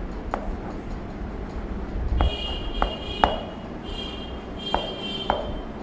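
Chalk writing on a chalkboard: a string of sharp taps as the chalk strikes the board, with a high squeak in three stretches from about two seconds in.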